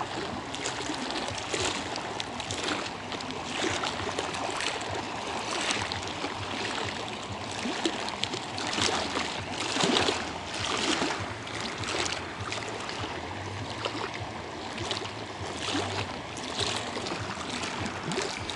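Small waves lapping and splashing against a concrete bank, in irregular washes every second or two.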